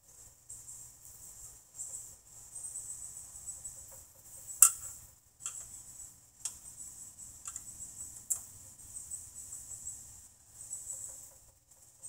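Wrench clinking against metal on a garden tractor engine, about half a dozen sharp clicks a second or so apart. Crickets trill steadily throughout.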